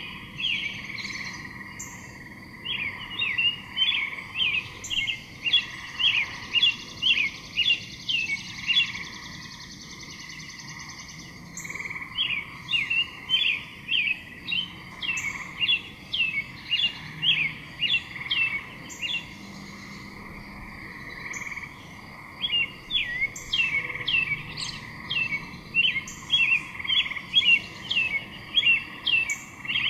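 Repeated sharp, high chirps from a small animal, about two a second, in long runs broken by two short pauses.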